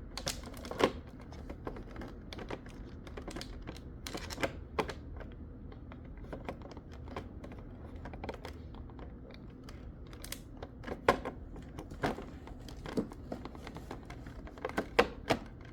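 Irregular clicks, taps and knocks of hard plastic parts of a Hoover carpet shampooer being handled and fitted together during assembly.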